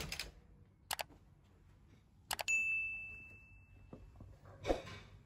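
Subscribe-button overlay sound effects: a mouse click about a second in, then a quick double click, followed by one bright bell ding that rings out for about a second. A short, softer sound comes near the end.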